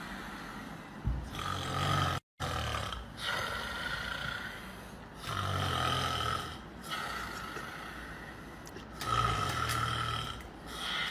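A person snoring: about four drawn-out, rasping snores, each about a second long and a few seconds apart.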